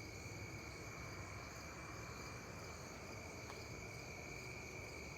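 An unexplained loud rushing hiss from the sky, which to the listeners sounds like a jet and seems to come from every direction, on repeat. It is heard over a steady night-time chorus of crickets and insects holding a high tone.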